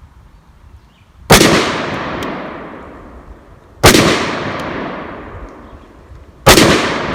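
Three shots from a PSA AR pistol in .223/5.56, about two and a half seconds apart, each followed by a long echoing decay.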